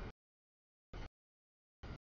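Short clipped fragments of a passing double-stack freight train's rumble, three of them about a second apart, each starting and cutting off abruptly with dead silence between: the audio feed is dropping out.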